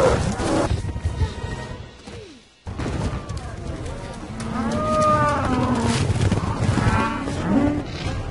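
A water buffalo herd stampeding, with several long bellowing calls in the second half over a dense rumble of the herd and film music. The sound drops out almost completely for a moment about two and a half seconds in.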